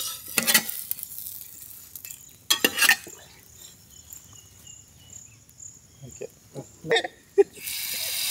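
Steel spatula and aluminium cookware clinking and scraping in a few separate sharp clanks. Near the end, beaten egg poured into a hot pan starts a steady sizzle.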